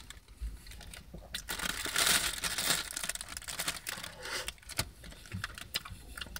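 Food wrapping crinkling as it is handled, loudest about two seconds in, with scattered small clicks around it.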